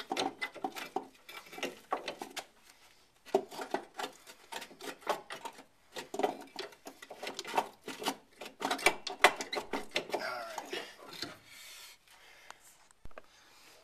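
A new rear strut being shoved and wiggled up into its mounting hole in the car body: irregular clinks, knocks and scraping of metal on metal, in clusters that die away about eleven seconds in.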